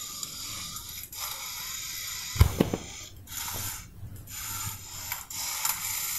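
Small toy battle robots rattling mechanically, with scattered plastic clicks and knocks; the loudest knock comes about two and a half seconds in.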